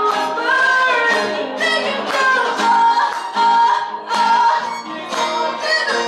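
Live song performance: women's voices singing a melody, accompanied by a violin and an acoustic guitar.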